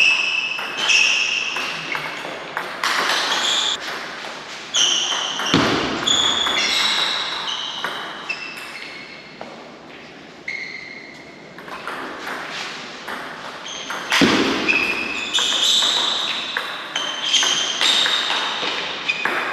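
Table tennis balls struck back and forth by bats and bouncing on the tables in fast rallies: a string of short, sharp pings ringing in a large hall. Two heavier thuds stand out, about five and a half seconds in and again about fourteen seconds in.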